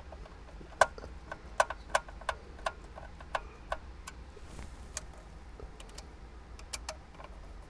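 Hand screwdriver driving small screws into a head unit's plastic mounting plate: a run of sharp, evenly spaced clicks, about three a second, that stops near the five-second mark and returns briefly near the end.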